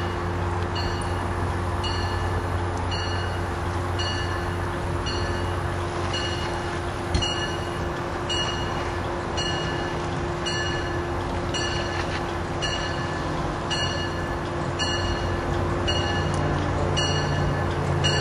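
A bell rings steadily, a little faster than once a second, over the low, steady rumble of an approaching diesel train.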